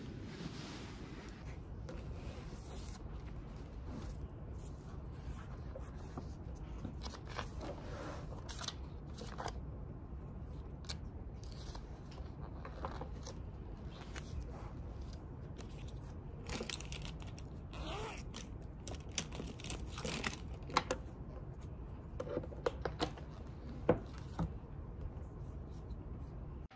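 Quiet room tone with scattered paper rustles and page turns, plus light taps and clicks of pens and highlighters on a desk, growing more frequent in the second half.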